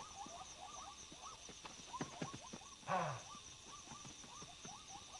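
African bush at night: a steady high insect trill under a chorus of short, repeated chirping calls, with one louder, deeper animal call about three seconds in.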